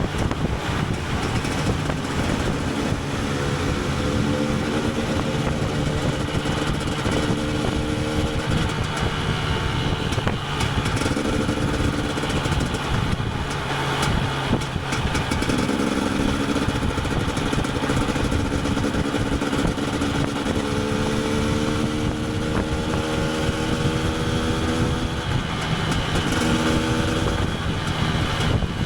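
KTM 250 EXC TPI single-cylinder two-stroke engine under way, revving up and dropping back again and again as the rider accelerates and eases off.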